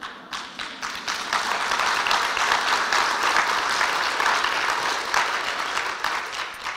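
Audience applauding, swelling about a second in, then dying away near the end.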